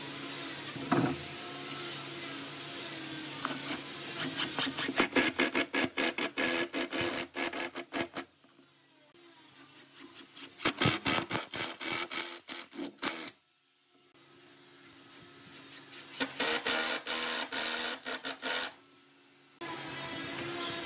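Cordless impact driver driving screws into pine, in three bursts of rapid hammering with short pauses between.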